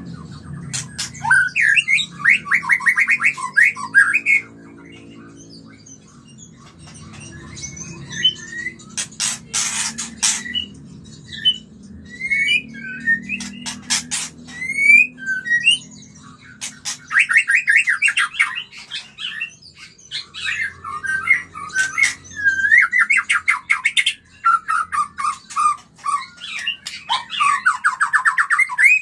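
White-rumped shama giving mating calls: bursts of fast rattling trills, short whistled notes and sharp clicks. The longest rattles come near the start, about two-thirds through, and near the end.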